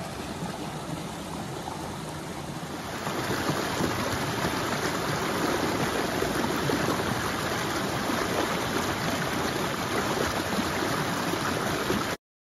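Shallow rocky forest creek running over and between boulders: a steady rush of flowing water. It grows louder about three seconds in and stops abruptly just before the end.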